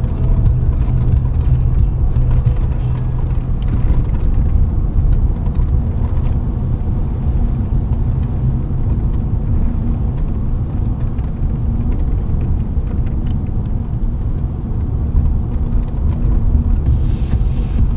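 Steady low rumble of a car's engine and tyres on the road, heard from inside the cabin while driving at speed, with a few light ticks near the end.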